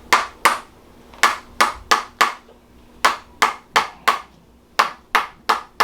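Chiropractic tapping on the side joint: sharp, quick taps at about three a second, in short runs of three or four with brief pauses between them.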